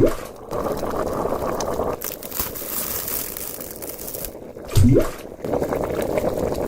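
Hot pot simmering with steady bubbling, interrupted twice, at the start and about five seconds in, by a short loud rising tone.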